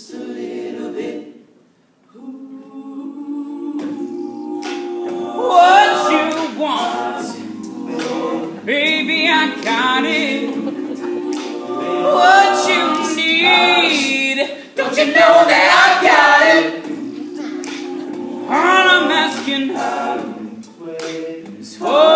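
All-male a cappella group singing a soul song: lower voices hold chords beneath a male lead voice carrying the melody. The singing breaks off briefly near two seconds in, then resumes.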